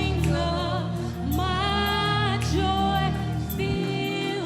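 Gospel worship music: a singer holds and slides through long sung notes over sustained keyboard chords and bass.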